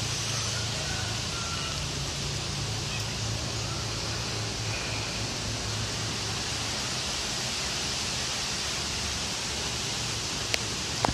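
Strong wind rushing steadily through trees, with a couple of sharp clicks near the end.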